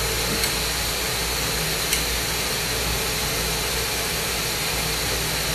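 Steady rushing hiss of a glassblowing torch flame, with two light ticks in the first two seconds.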